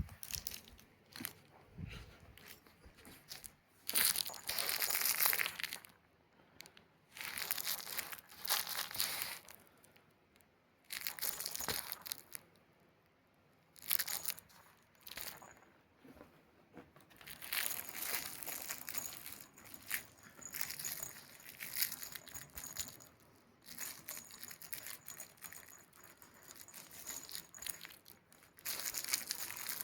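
Crinkling, rustling noise in irregular bursts, each lasting up to a couple of seconds, with short quiet gaps between them.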